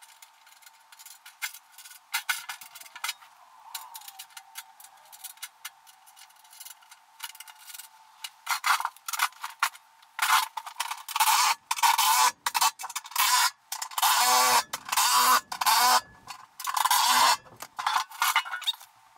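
Small bolts and washers clinking and rattling against a steel ATV plow blade. From about halfway, a cordless drill runs in many short bursts, driving in the 17 mm bolts along the blade's edge.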